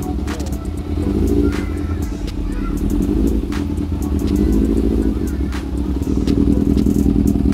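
Yamaha XJR400's air-cooled inline-four engine running and being revved lightly on the throttle, louder near the end. The owner says it runs poorly at low RPM because its carburettor fuel screw cannot be adjusted.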